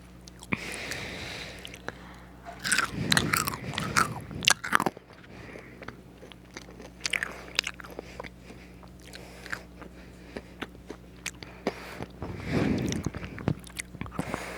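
Someone biting and chewing crunchy fries, with a cluster of loud crunches a few seconds in and another near the end.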